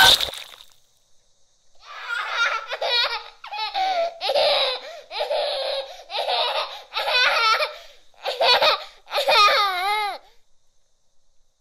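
A person laughing in about eight separate bursts, starting about two seconds in. The laughter sounds thin, with no low end, and the last burst wavers up and down in pitch.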